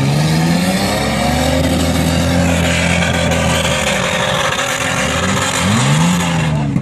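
Two-door Nissan Patrol's engine revving hard under load as it climbs a steep sand dune with its wheels spinning in the sand. The revs climb at the start and hold high, drop about four seconds in, then rise and fall once more near the end.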